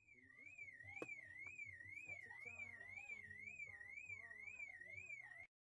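A quiet car alarm warbling up and down about twice a second, with a single knock about a second in. It cuts off suddenly near the end.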